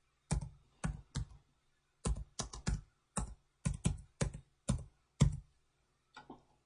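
Typing on a computer keyboard: a run of separate keystrokes at an uneven pace, broken by a couple of short pauses.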